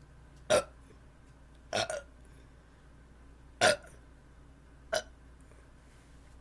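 A woman burping in short bursts, four times, the second a quick double, after drinking carbonated seltzer.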